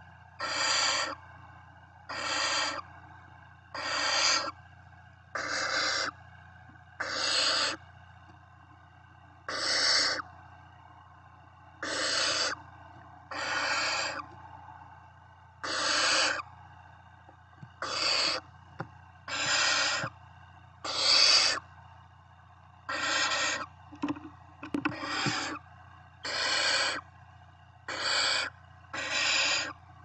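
Barn owl nestlings giving their hissing, rasping 'snoring' begging calls, short calls of about half a second repeated every second or two. This is the food-begging call chicks make in the nest.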